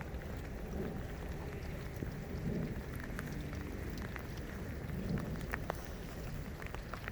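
Steady rain falling, with scattered sharp drop ticks over an even hiss.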